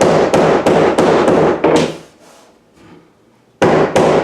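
Quick, even hammer taps on a LifeProof vinyl floor plank, about three a second, knocking its click-lock joint down until it is seated. The tapping stops for about a second and a half in the middle, then starts again.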